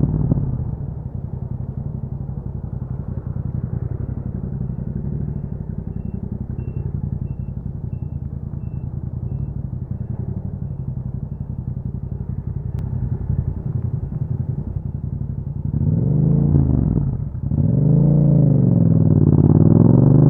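Yamaha MT-07 parallel-twin engine through an Akrapovic exhaust: it drops back to a steady low idle about a second in and holds there, then near the end the revs rise and fall a few times before climbing steeply as the bike accelerates.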